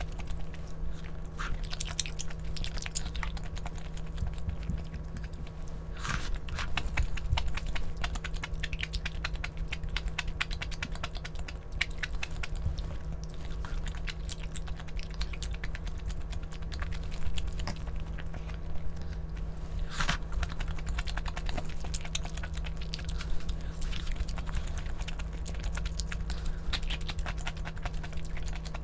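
Close-up eating sounds: chewing and biting, with many small scattered clicks and crunches, over a steady low hum.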